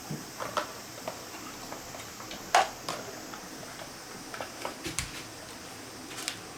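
Irregular light clicks and taps of small parts being handled, with a sharper knock about two and a half seconds in and another about five seconds in.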